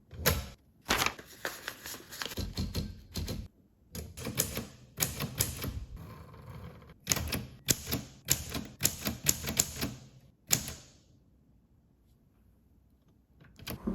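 Old typewriter being typed on: quick runs of key strikes in three bursts with short pauses between them, stopping about eleven seconds in.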